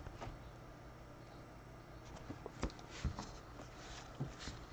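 Faint handling of trading cards: a few soft clicks and light rustles as cards are moved, most of them in the second half.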